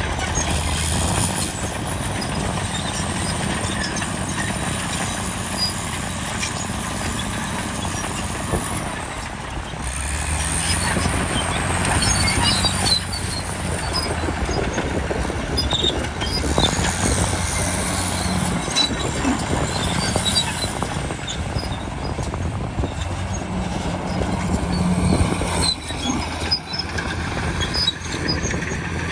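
A bulldozer's diesel engine running under load, with high squeals from its steel tracks. The engine swells a couple of times as it works.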